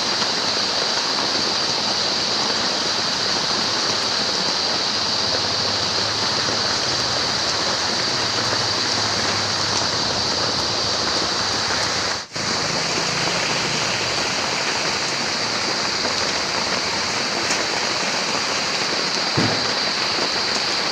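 Steady rain falling outside, a dense even hiss, with a brief dropout about twelve seconds in and a short low thump near the end.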